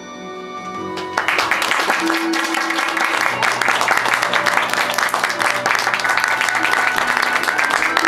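Audience applause breaking out suddenly about a second in and carrying on as a dense, steady clapping over soft background music.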